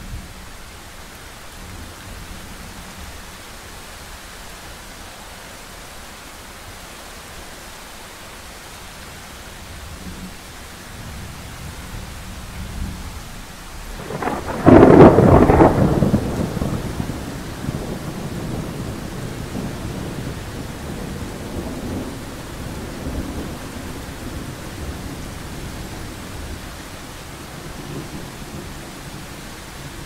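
Thunderstorm: steady rain with thunder that rumbles up, breaks into a loud clap about halfway through, then rolls on and fades over the following several seconds.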